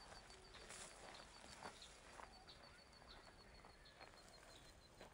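Near silence: faint outdoor ambience with a few soft, scattered knocks and a faint high pulsing at about five pips a second.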